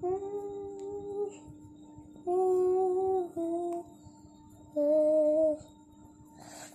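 A voice humming a slow tune in four long held notes that step down in pitch, over a faint steady hum.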